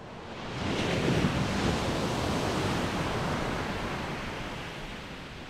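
Ocean surf: one wave surges up, loudest about a second in, then slowly washes away.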